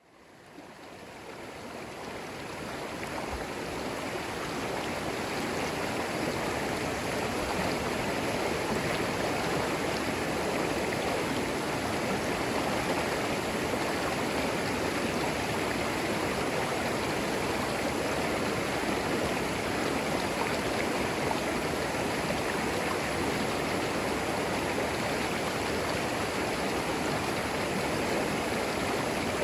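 Creek water flowing over stones: a steady, even rush and babble. It fades in over the first few seconds, then holds level.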